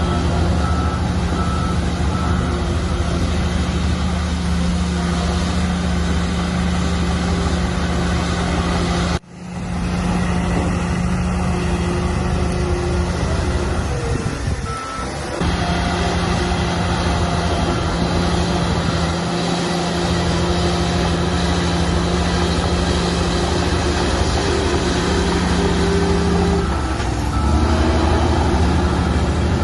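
Shantui bulldozer's diesel engine running steadily under load, with short repeated beeps near the start. The sound drops out sharply for a moment about nine seconds in.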